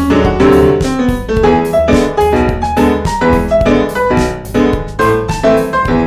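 Background instrumental music: a melody of quick, evenly spaced notes over a low bass.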